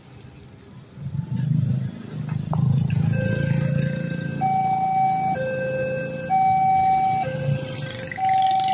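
Railway level-crossing electronic warning siren starting about three seconds in: two steady tones, low then higher, alternating about once a second, the signal that a train is approaching and the crossing is closing. Motorcycles and cars pass with engine noise underneath.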